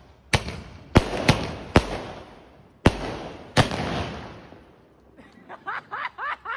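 Multi-shot aerial firework box (a 'sky shot' cake) firing shot after shot: six sharp bangs in about three and a half seconds, each followed by a crackling, rumbling tail, then dying away.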